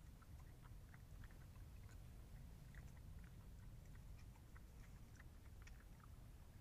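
European badgers chewing food: faint, irregular small clicks and crunches over a steady low hum.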